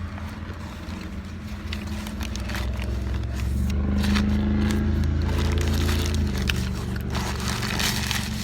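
Chewing on a crispy fried chicken sandwich: short crunching clicks, over a steady low hum that swells for a few seconds in the middle.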